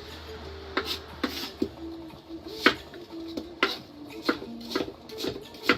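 Kitchen knife chopping onion on a cutting board: irregular sharp knocks of the blade on the board, about two a second. Faint music plays underneath.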